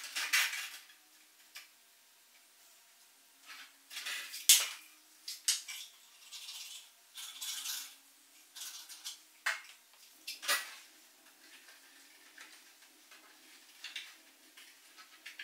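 Thin 3D-printed plastic wing sections handled and pressed together during wing assembly, giving irregular light clicks, crackles and taps against each other and the tabletop, with a few sharper clacks about four and a half and ten and a half seconds in.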